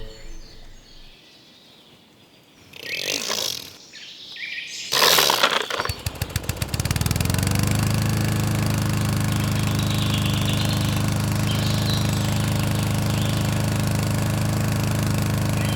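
Petrol lawn mower engine starting: a couple of short noisy bursts, then a fast sputtering that catches about six seconds in and settles into a steady idle.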